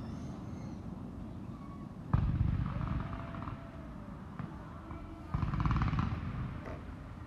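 Fireworks going off: two sudden booms about three seconds apart, each trailing off in a second or so of rumble and crackle.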